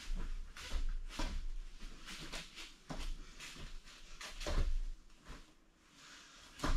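Taekwondo uniform snapping and bare feet thudding and shuffling on foam mats during a poomsae, in a string of irregular sharp hits as she kicks and steps between stances.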